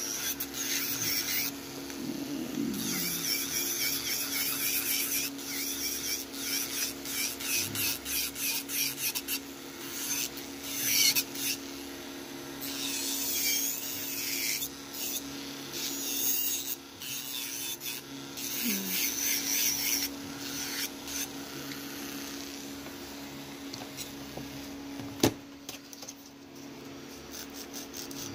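Electric nail file (e-file) running with a steady hum while its bit grinds acrylic on a fingernail in repeated short passes, about two a second for several seconds, then more irregularly. A single sharp knock comes near the end.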